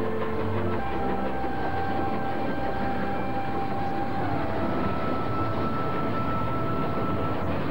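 Steam train running along the track, a steady rumble. Faint held high tones run over it, one of them stepping down in pitch about four seconds in.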